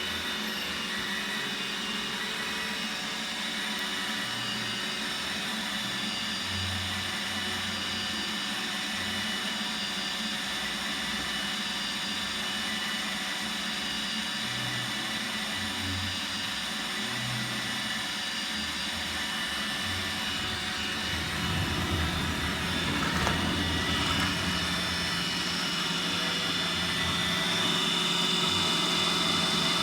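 Roomba robot vacuum running: a steady motor whine that grows a little louder about two-thirds of the way through.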